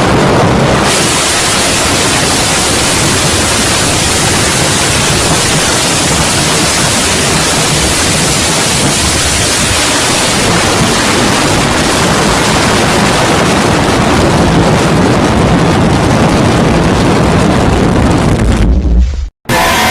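Loud, steady rushing noise like heavy static or roaring wind, used as a scary sound effect. A deep low rumble swells near the end, then it cuts off suddenly.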